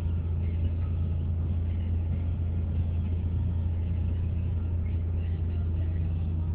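Steady low drone of a car heard from inside the cabin, an even hum with no change in level.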